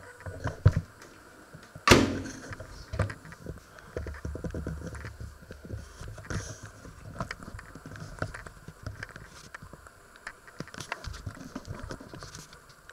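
Rumbling and rubbing from a handheld camera being moved about, mixed with irregular knocks and clicks. The loudest is one sharp knock with a short ring about two seconds in.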